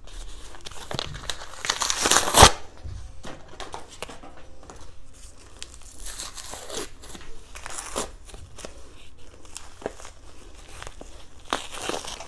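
Cardboard wrapping being torn and picked off a molded block of cornstarch: irregular crinkling, tearing and crackling, with one sharp snap about two and a half seconds in.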